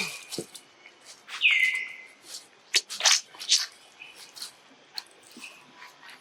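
Young pet monkeys giving short, high-pitched squeaks and chirps, including one falling squeal about a second and a half in, among a few light taps and rustles.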